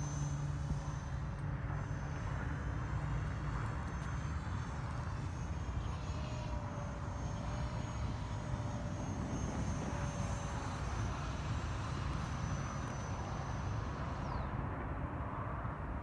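Thin, high whine of a 50 mm electric ducted fan on an RC model jet flying overhead, its pitch wavering as the plane moves about the sky, with a falling whine near the end. Steady wind rumble on the microphone runs underneath.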